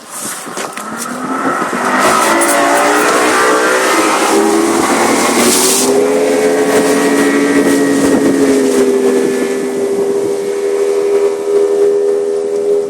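200-horsepower Yamaha Saltwater Series two-stroke V6 outboard accelerating the deck boat onto plane. Its pitch climbs for about six seconds, then it runs steadily at speed over a hiss of wind and water.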